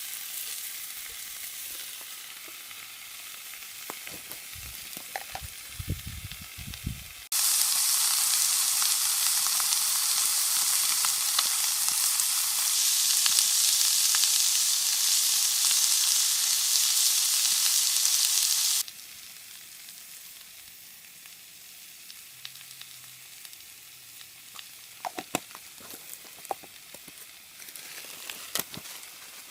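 Yakisoba noodles sizzling in a hot skillet, with some stirring and scraping. About seven seconds in, a much louder, harsher sizzle starts suddenly and runs for about eleven seconds before cutting off. It drops back to a softer sizzle with a few sharp clicks near the end.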